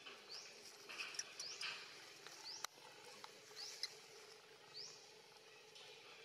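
A bird repeating a short, high, rising call about once a second, faint against the forest background, with one sharp click about two and a half seconds in.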